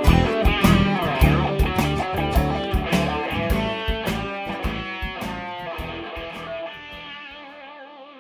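Stratocaster-style electric guitar playing blues lead lines over a backing track with drums and bass. The whole mix fades steadily, and the last guitar notes are held with vibrato as the drums drop away.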